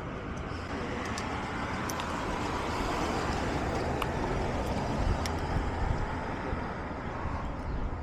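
Steady vehicle and road noise with a low rumble, swelling a little through the middle, and a few faint light clicks.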